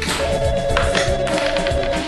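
Background music with a telephone ringing over it: one long warbling ring, starting just after the beginning and stopping near the end.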